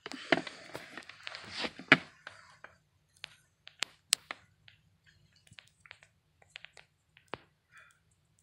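Rustling handling noise for about two seconds, then a scattered run of light clicks and taps.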